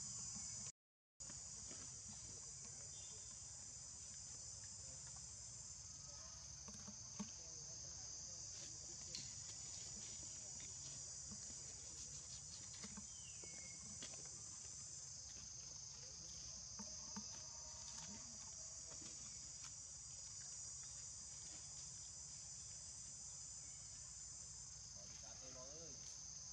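Steady high-pitched buzzing of an insect chorus, with a few faint clicks over it; it cuts out for a moment about a second in.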